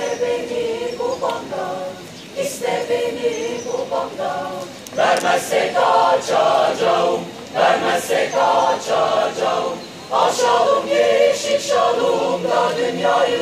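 Mixed choir of men's and women's voices singing polyphonic music a cappella, in phrases with short breaks between them. The singing grows louder about five seconds in.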